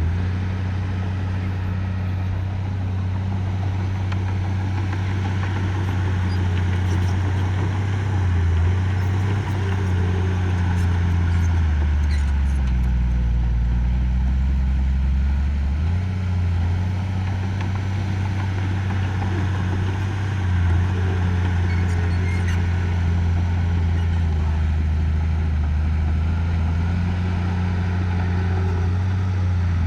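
Heavy construction machine's diesel engine running steadily under work. Its note dips briefly a few times and drops lower for several seconds about halfway through before picking back up.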